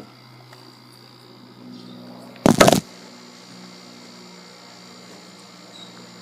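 One kick on the Chang Jiang CJ750 motorcycle's kickstarter, a short loud clunk as the flat-twin engine turns over about two and a half seconds in. It is a priming kick with the ignition off to draw fuel into the cylinders, so the engine does not fire.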